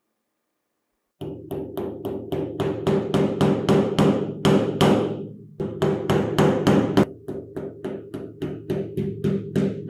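Steel hammer rapidly tapping small nails through plastic cable clips into a wooden strip, about four light strikes a second, starting about a second in and pausing briefly a little past halfway. A steady low hum runs under the taps.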